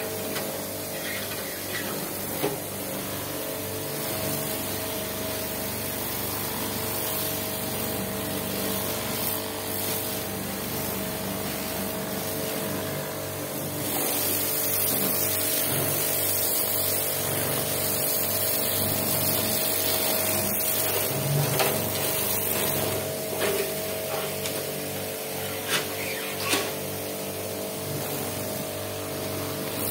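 High-pressure washer running steadily, its pump humming under the hiss of the water jet spraying the metal plates of a plate heat exchanger. A few short knocks stand out in the second half.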